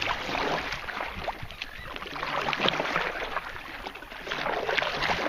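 Water splashing and lapping around a kayak as it is paddled through choppy water, the paddle strokes swelling and easing in turn.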